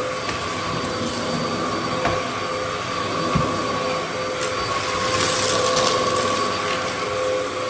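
Dyson DC07 upright vacuum cleaner running steadily: a motor whine over a rush of air, with a brighter hiss about five seconds in.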